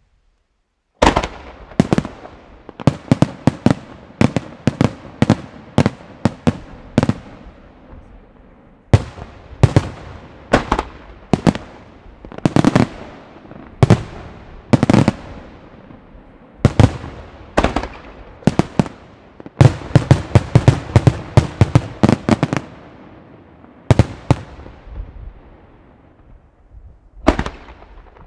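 Fireworks display: aerial shells bursting in rapid, irregular volleys of sharp bangs, starting about a second in, with a lull of a few seconds near the end.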